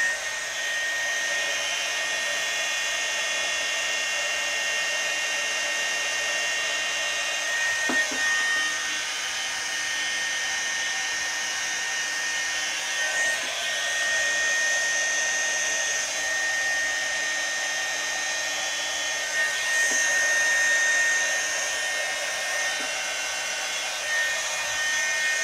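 Worx MakerX 20V battery heat gun running steadily, its fan blowing with a steady high whine, as it shrinks heat-shrink tubing over a soldered joint. A couple of faint knocks are heard along the way.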